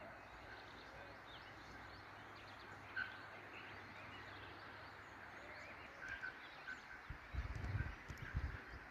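Faint outdoor ambience with birds or insects chirping, small repeated chirps throughout. A sharp click about three seconds in and a few low rumbles and thumps near the end.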